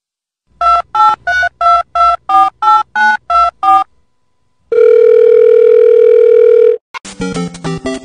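Telephone keypad dialing tones: ten short two-note beeps at about three a second, followed by a steady phone line tone held for about two seconds. A bouncy, game-style tune of quick notes begins near the end.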